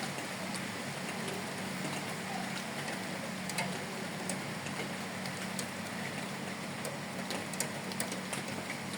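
Light rain falling, a steady hiss of rain with scattered sharper ticks of single drops, over a faint steady low hum.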